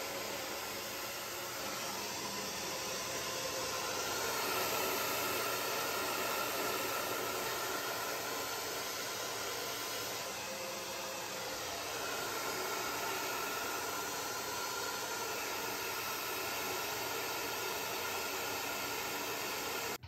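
Somoya handheld hair dryer running steadily, a rushing hiss of air with a faint motor whine, blowing through hair pulled along a round brush. It cuts off abruptly at the end.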